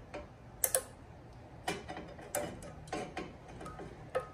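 Pliers clicking against a metal clamp on a rubber fuel line: about seven sharp, irregular metallic clicks, some with a short ring.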